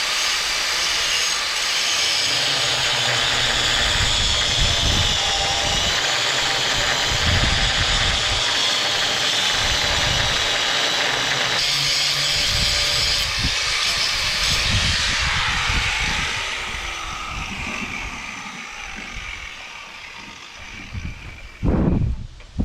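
Angle grinder grinding steel rivet heads, running steadily for about fifteen seconds, then coming off the work and spinning down with a falling whine. A short thump near the end.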